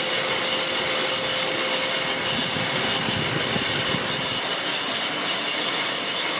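Metal lathe taking a finishing cut, the tool on the spinning metal workpiece giving a steady high-pitched whine over the machine's running noise.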